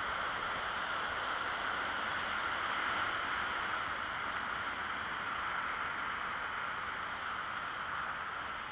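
Steady rushing noise of a bicycle rolling along a paved path: wind on the microphone mixed with tyre noise, even and unbroken.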